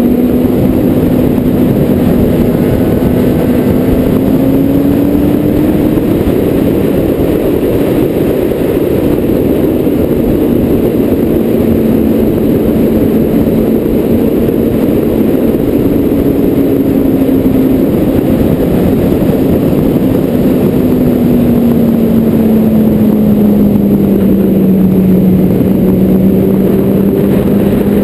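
Car engine and road noise while driving, heard loud and steady; the engine note drifts slowly up and down with the speed, falling away in the last few seconds before it starts to climb again.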